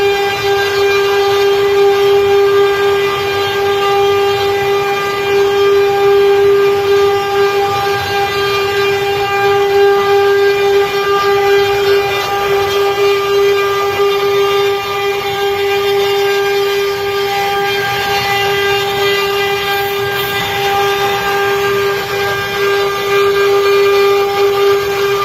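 Six-spindle CNC wood router carving wood: the spindles run with a loud, steady, unbroken whine, over a rough hiss from the bits cutting the wood.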